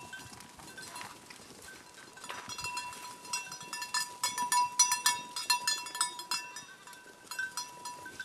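A herd of goats on the move, with small bells clinking and ringing in quick, irregular strikes that are thickest around the middle.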